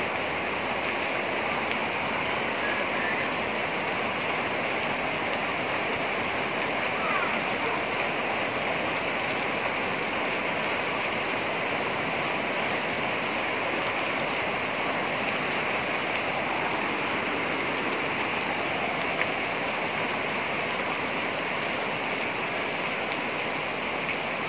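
Heavy rain pouring steadily onto clay-tile roofs, a dense, even hiss.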